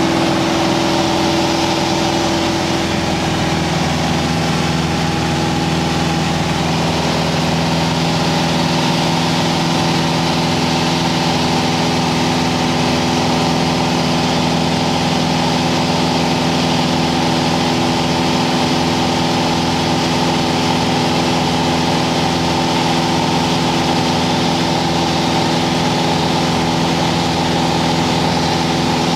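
A single-engine light aircraft's piston engine and propeller drone steadily in flight, heard from inside the cockpit. The tone shifts slightly about three seconds in, then holds steady.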